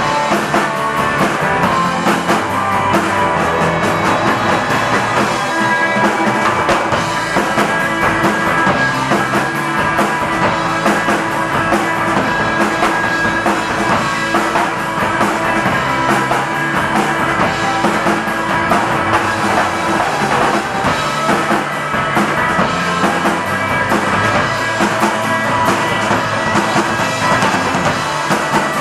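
Live rock band playing: two drummers pounding drums, one standing at a snare and toms and one at a full kit, with electric bass and electric guitars, loud and driving.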